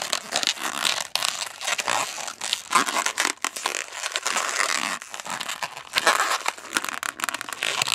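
Inflated latex twisting balloon rubbing and stretching under the fingers as its nozzle and tail are tied into a knot: a continuous scratchy rubbing with many small crackles.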